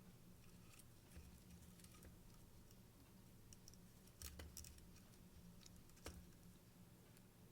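Near silence: a few faint clicks and light rattles from small clock parts and chain being handled, over a low steady hum.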